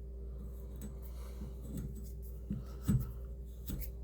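Wire brush scrubbing old thread-seal tape off pipe threads: a few faint, scratchy strokes.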